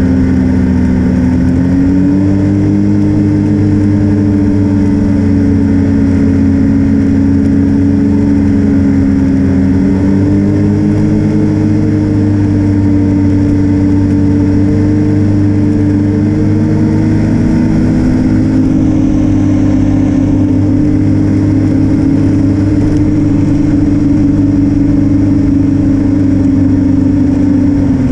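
Snowmobile engine running steadily at cruising speed. Its pitch rises slightly about two seconds in and again around ten seconds, then drops right at the end as the throttle eases off.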